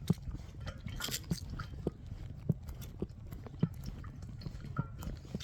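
Footsteps crunching along a hiking trail at a steady walking pace, a step about every half second or so.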